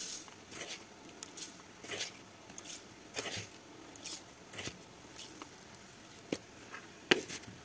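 Spoonfuls of sugar poured into water in a stainless steel bowl: a string of short pattering hisses about every half second, with sharp clinks of the metal spoon on the steel bowl at the start and, loudest, near the end.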